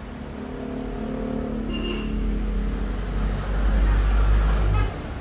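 A motor vehicle engine running, growing steadily louder over about four seconds with a deep rumble, then cutting off suddenly near the end.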